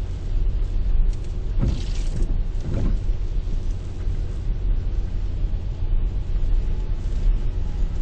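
Storm wind buffeting the microphone with a heavy, constant low rumble, over the wash of Lake Erie storm waves breaking on the sea wall. Two brief surges of crashing spray come about two and three seconds in.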